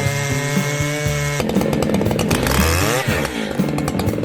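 Chainsaw engine running at high revs. About a second and a half in the sound turns rougher, and around three seconds in its pitch dips and climbs again.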